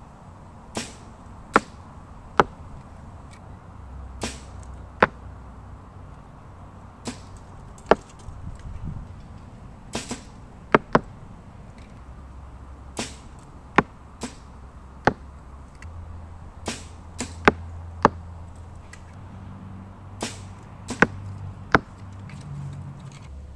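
Two recurve bows being shot in turn: a string of sharp snaps as the strings are released, spaced irregularly and some coming in quick pairs.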